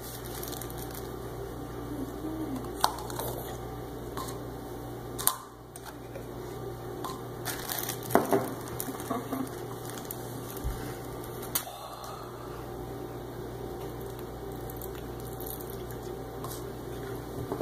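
Food-prep handling at a counter: a plastic zip-top bag of corn rustling as a spoon works in it, bottles and a small plastic cup handled, and liquid poured into the cup. A few sharp clicks and knocks stand out over a steady low hum.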